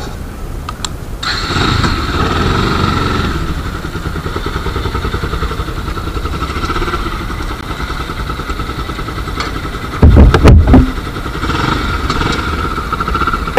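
Bajaj Pulsar NS200's single-cylinder engine, fitted with a K&N aftermarket air filter in place of the stock filter, pulling away and riding on, getting louder about a second in and then running steadily. A loud low buffeting on the microphone comes about ten seconds in.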